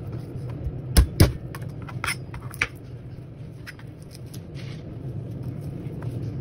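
Flat of a cleaver smacked down onto garlic cloves on a plastic cutting board, crushing them: two sharp whacks about a second in, a quarter second apart, then two lighter knocks about a second later. A low steady hum runs underneath.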